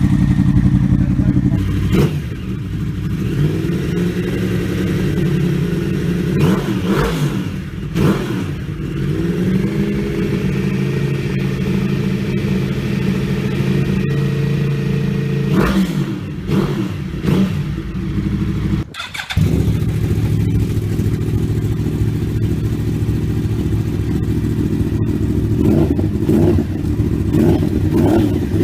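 Yamaha R1 sport bike's inline-four engine idling through an aftermarket exhaust, with several short throttle blips. About two-thirds of the way through the sound cuts out for a moment before the idle resumes.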